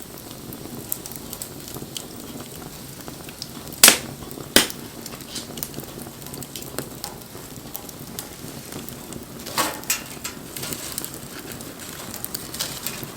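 Wood fire burning with a steady crackle, two loud sharp pops about four seconds in and another cluster of pops a little past halfway.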